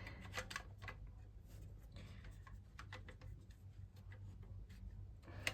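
Faint, scattered clicks and taps of plastic vacuum cleaner parts and wiring being handled and fitted back together, over a low steady hum.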